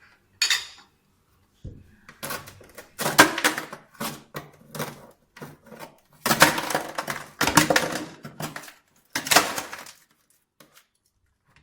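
Bowls and other items being handled in a freezer compartment: an irregular run of short clattering and scraping noises.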